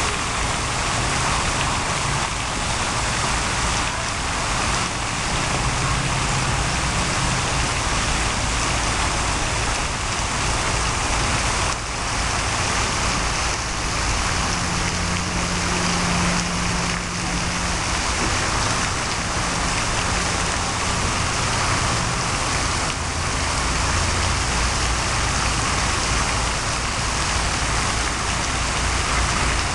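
Steady splashing hiss of a pond fountain's spray falling back onto the water, with a low hum partway through.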